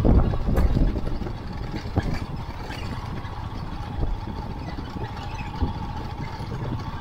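Royal Enfield Himalayan motorcycle's single-cylinder engine running at low speed on a gravel road, with tyre and road noise; a little louder for the first second or so.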